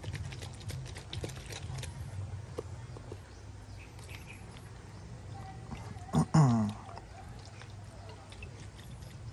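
Lidded plastic mixing cup of paint being handled and shaken, giving light clicks and taps in the first few seconds over a steady low hum. About six seconds in, a brief voice-like call falls in pitch and is the loudest sound.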